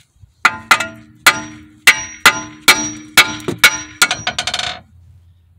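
Hammer blows on the steel steering knuckle to knock the outer tie rod end's tapered stud loose. About nine sharp, ringing metallic clangs come at a steady pace over about four seconds, then a quick run of lighter taps that stops near the end.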